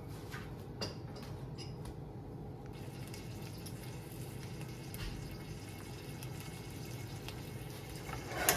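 Raw bacon in a nonstick frying pan starting to sizzle faintly with light crackles as the pan heats up from cold, the sizzle growing a little about three seconds in. A sharp click near the end.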